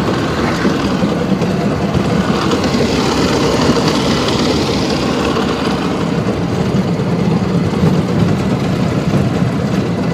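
LuAZ utility vehicle on the move, its engine and drivetrain running steadily under way.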